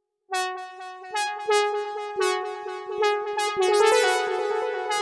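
Synthesizer lead sound with a bright, buzzy tone, starting suddenly a moment in and playing a melody of short, repeated notes that step between a few pitches.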